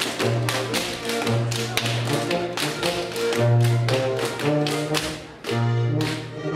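Schuhplattler dancers slapping their thighs, knees and shoe soles in quick sharp runs, with claps and stamps, in time to folk dance music with a steady bass line.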